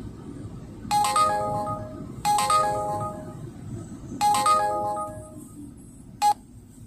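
Electronic chime from a drive-through car wash machine: a short stepped melody played three times, followed by a single short beep near the end, over a steady low machine hum.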